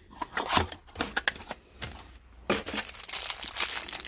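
Clear plastic parts packaging crinkling and rustling as it is handled, in short irregular rustles that get denser and steadier in the second half.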